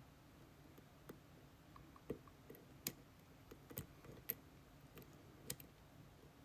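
Faint, irregular light clicks of a lock pick working the pin stacks of a Dorma Kaba GeGe pExtra+ cylinder under added tension, about half a dozen sharp ticks spread a second or so apart.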